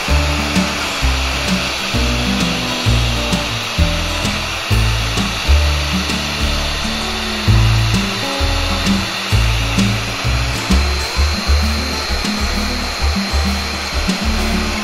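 Electric motor of a Hitachi Koki hollow chisel mortiser running steadily, a continuous whirring hiss, under background music with a stepping bass line.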